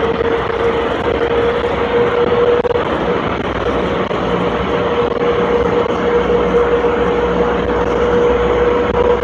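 Airport people-mover train running: a steady rushing rumble with a steady mid-pitched whine, joined by a lower hum about three seconds in.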